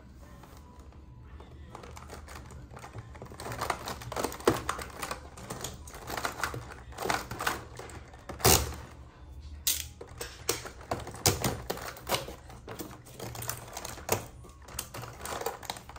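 Irregular clicking and tapping of small plastic toys and packaging being handled, sparse at first and busier from about three seconds in, with one sharper click past the middle.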